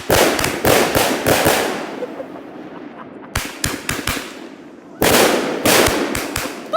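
A multi-shot consumer fireworks cake firing, a rapid string of sharp bangs and crackles. The shots come thick for about two seconds, fade to a hiss, resume more sparsely, then come thick again about five seconds in.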